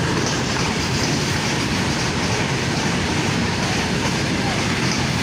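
Train running along the track: a steady, even noise of wheels on rails with no horn.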